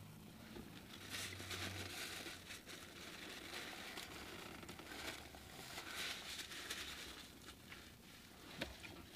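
Paper napkin crinkling and rustling in the hands, coming and going for several seconds, with one sharp click near the end.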